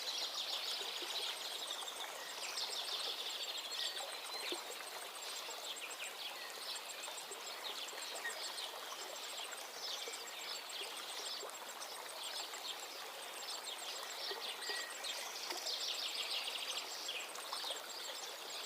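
Birds chirping and trilling over a steady hiss, with a fast, high-pitched ticking running underneath.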